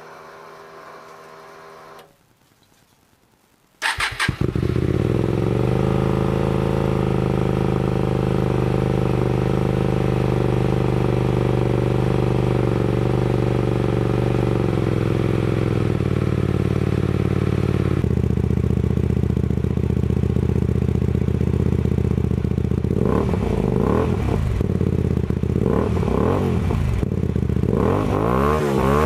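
2011 Hyosung GT250R EFI's 250 cc V-twin engine through a Musarri slip-on silencer with its baffle removed. After a faint hum, the engine cranks and catches about four seconds in, runs at a raised idle that settles into a steady idle, then is revved in several short blips near the end.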